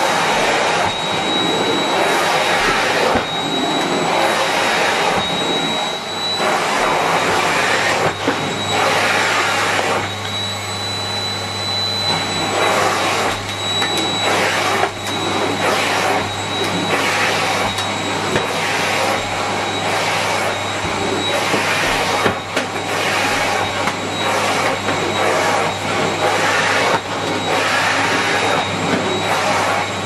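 Miele Complete C3 bagged canister vacuum cleaner running on carpet: a steady high motor whine over a rush of suction air that swells and dips as the floor head is pushed back and forth.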